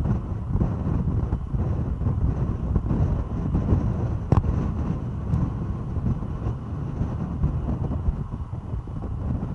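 Car driving at highway speed: a steady rumble of road and wind noise, with wind buffeting the microphone. One sharp click comes about four seconds in.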